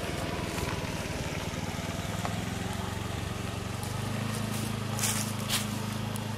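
A motor vehicle engine running steadily, its pitch stepping up about four seconds in. Two short crackling noises half a second apart come near the end.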